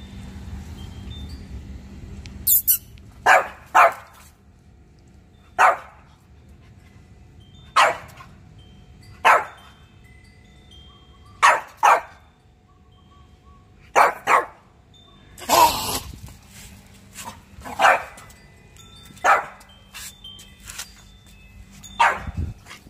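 French bulldog barking again and again, single sharp barks and quick pairs every second or two.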